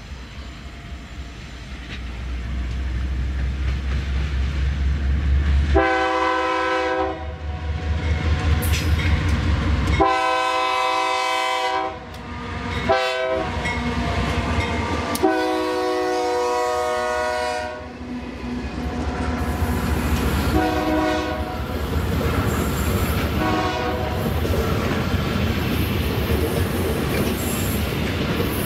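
Diesel freight train approaching and passing, its engine rumble building over the first few seconds. The locomotive's chord air horn sounds long, long, short, long, then two fainter short blasts follow. Wagon wheels clatter over the rail joints as the train rolls by.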